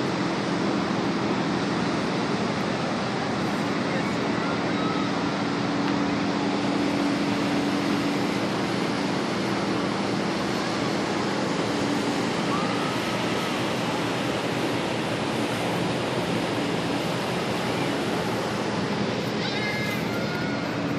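Steady rush of wind and water heard from the deck of a moving cruise ship, over a low steady hum. A few faint, brief higher tones come through, two of them near the end.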